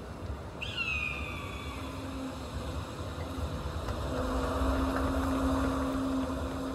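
Stadium crowd murmur with a falling whoop or whistle from the stands about a second in. Then a low steady note comes in and holds, growing louder toward the end: the sustained opening of the marching band's show.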